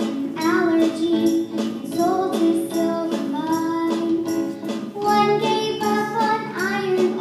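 A girl singing a solo melody into a microphone over music with held, sustained chords.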